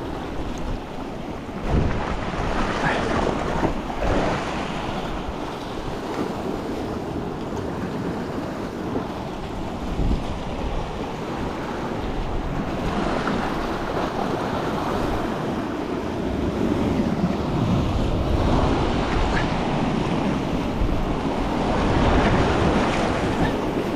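Ocean surf washing against the rocks, with wind buffeting the microphone and a few low thumps; the wash swells louder in the second half.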